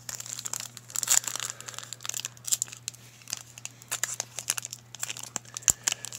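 Foil wrapper of a 2018 Panini Select trading card pack crinkling and rustling in the hand, a quick run of sharp crackles.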